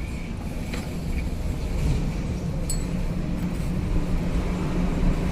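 Steady low rumble of passing vehicles, with a few faint metallic clicks.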